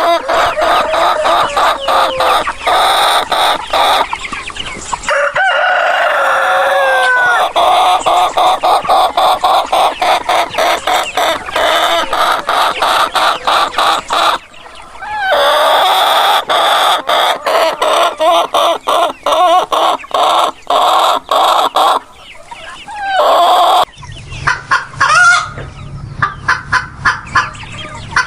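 Chickens clucking rapidly and continuously, with a rooster crowing now and then. The sound cuts off and changes abruptly a few times.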